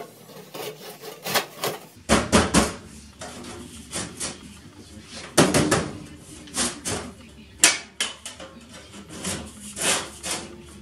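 Sheet-metal ductwork knocking, scraping and rattling as a duct transition and damper assembly is fitted onto an air handler's plenum. It comes as an irregular run of sharp metallic knocks with short scrapes between them.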